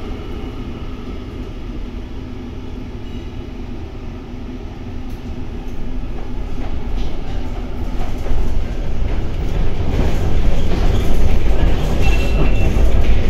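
Interior of an HTM GTL8 articulated tram running on its rails: a steady rumble of wheels and running gear that grows louder from about six seconds in. A brief high tone sounds near the end.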